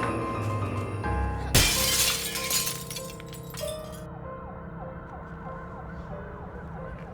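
Glass shattering loudly about a second and a half in, a window smashed as a person crashes through it, over tense film score music. An emergency siren then wails up and down under the music.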